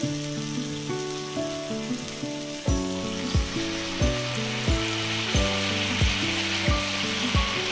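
Background music with a steady beat that enters about three seconds in, over homemade spam slices sizzling in a frying pan; the sizzle grows stronger as dark soy sauce is spooned onto the hot meat.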